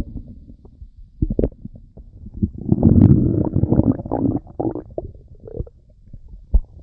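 Stomach growling and gurgling. One long rumble swells in the middle, with scattered short gurgles and pops before and after it.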